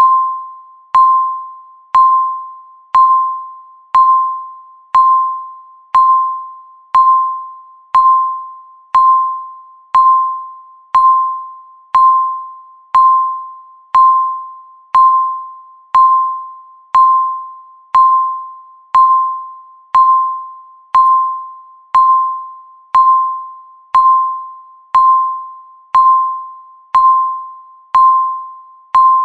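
Countdown timer beeping once every second: a single short high beep that starts sharply and fades quickly, repeated evenly throughout.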